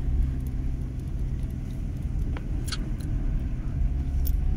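Car engine and tyres rumbling steadily as heard from inside the cabin while driving, with a few light clicks about halfway through and again near the end.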